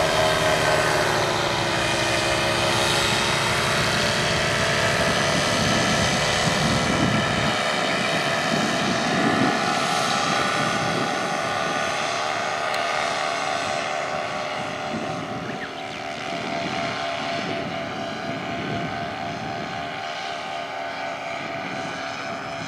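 Paramotor engine and propeller droning overhead. The pitch drops a little in the first two seconds, then holds steady and fades slowly as the paramotor climbs away.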